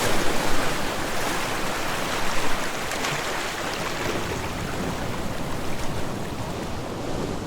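Sea waves washing onto the shore: a continuous surf wash with small swells about half a second in and again about two and a half seconds in, easing off slightly toward the end.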